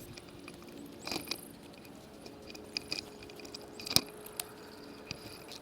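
Irrigation valves and metal fittings being handled as they are closed: scattered light clicks and rattles with one sharp click about four seconds in, over a faint steady hum.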